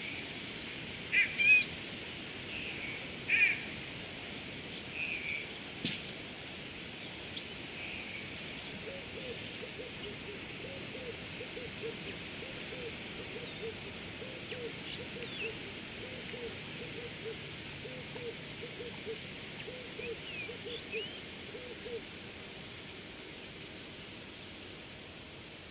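Natural bush ambience: insects keep up a steady high drone throughout. A few short, sharp bird chirps come in the first four seconds and are the loudest sounds. From about nine seconds in to about twenty-two, a low, short call repeats about twice a second.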